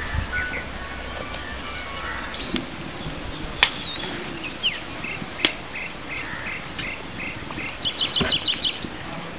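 Wild birds chirping and calling, with a run of short repeated notes in the middle and a quick series of high notes near the end. Two sharp clicks stand out about a third and halfway through.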